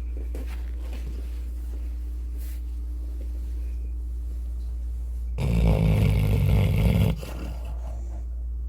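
Golden retriever snoring in its sleep: one loud snore lasting under two seconds, about five seconds in, over a steady low hum.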